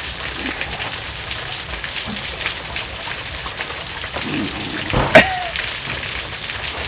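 Steady patter of rain, many fine ticks over a continuous hiss, with one sharp knock about five seconds in.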